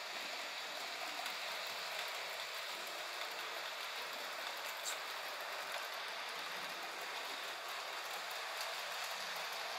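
Model railway train, a diesel locomotive hauling coaches, running on the layout track: a steady whirring rattle of the motor and wheels on the rails, with a faint click about five seconds in.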